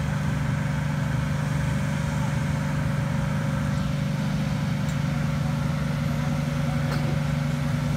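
Boat engine running steadily with a low drone and a faint higher hum.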